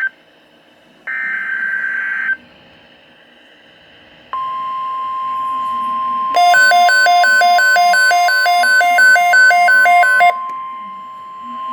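NOAA Weather Radio Specific Area Message Encoding (SAME) alert: a one-second burst of warbling data tones about a second in. About four seconds in, the steady 1050 Hz warning alarm tone begins and holds. From about six to ten seconds in, a receiver's electronic alarm beeps rapidly over it, alternating between two pitches, which signals that the radio has decoded an incoming alert.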